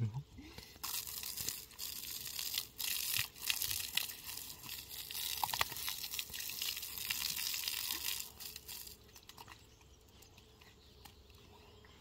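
Scratchy rubbing noise with many small clicks, like a stiff brush scrubbing a surface, for about eight seconds; it stops about nine seconds in, leaving only faint background.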